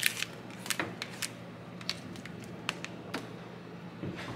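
A few sparse, light clicks and taps from handling a bowl and a stainless steel pot of raw collard greens, over a faint low steady hum. The clicks come mostly in the first second or so, with a couple more later.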